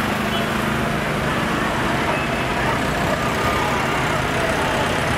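Several tractors driving past, their engines running steadily.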